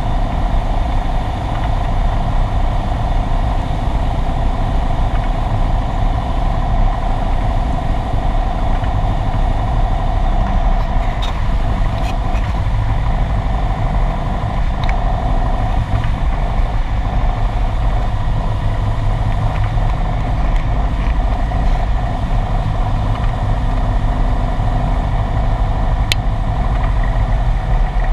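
Cessna 172's piston engine and propeller droning steadily, heard inside the cockpit, with a faint click near the end.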